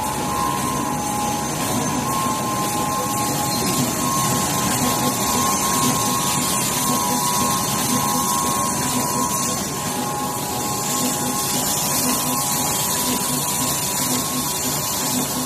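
Automatic multi-colour UV screen printing machine for tubes running: a steady mechanical noise carrying two high, even tones.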